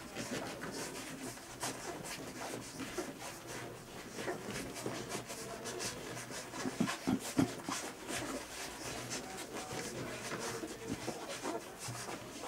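Three-week-old golden retriever puppies suckling and jostling at their mother: a steady jumble of small suckling, squirming and soft grunting noises, with a few louder thumps about seven seconds in.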